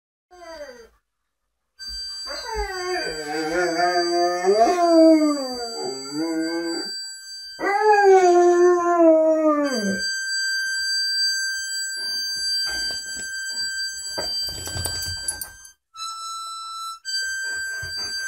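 German Shepherd howling along to a harmonica: a short rising cry, then two long wavering howls, the second dropping away at its end. Held harmonica notes sound under the howls and carry on alone after them, shifting to another note near the end.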